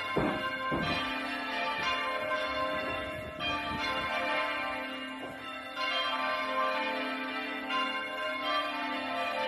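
Several church bells ringing, struck one after another about once a second, their tones overlapping and ringing on between strikes.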